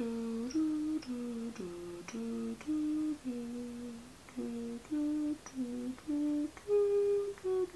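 Light background music: a simple tune played two notes at a time, the notes changing about twice a second, starting suddenly.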